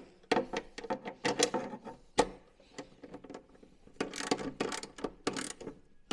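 Socket ratchet clicking in quick runs as a nylock nut is tightened on a pannier mounting bolt: two runs of rapid clicks with a single sharper clack between them.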